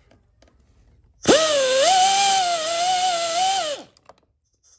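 A 3/8-inch pneumatic air gun running once for about two and a half seconds on a socket extension, backing out a master-cylinder-to-booster bolt. It spins up sharply about a second in, its whine wavers while it runs, and it winds down in pitch before stopping.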